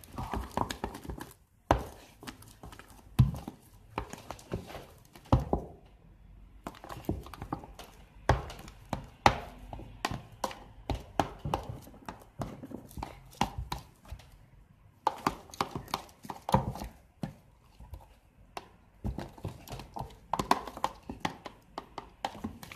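Fluffy slime of glue and shaving foam being mixed with borax activator by hand and with a plastic spatula in a clear plastic container: irregular knocks and taps against the container, with softer stirring noise between them.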